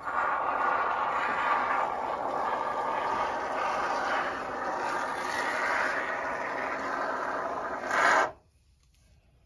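Aerosol can of expanding polyurethane assembly foam being sprayed through its straw applicator into the gap around a window frame: a steady hiss that swells briefly and then stops abruptly about eight seconds in.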